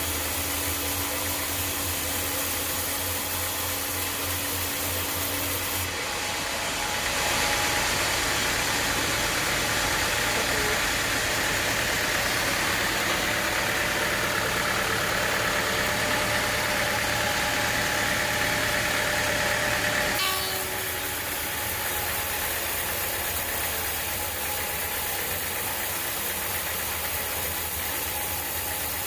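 Sawmill engine running steadily. About six seconds in, a louder, higher grinding noise sets in as the blade cuts through an acacia log; it lasts about fourteen seconds and stops suddenly, leaving the engine running on its own.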